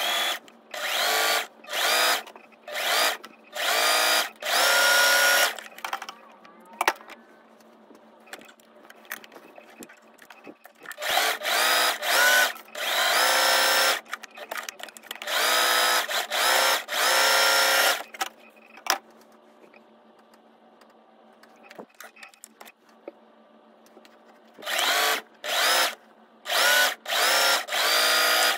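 Singer electric sewing machine stitching in about a dozen short runs, the motor whirring up in pitch each time the pedal is pressed and stopping between runs, with two longer pauses.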